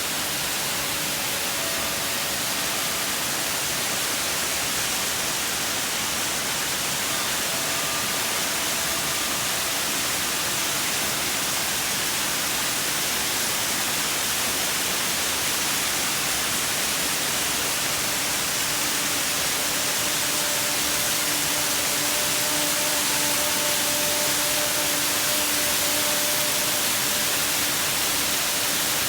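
Steady roar of a large waterfall, with the faint, long ringing tones of a Singing Ring (a Japanese metal singing-bowl instrument) sounding over it. The tones fade out around the middle and sound again for the second half.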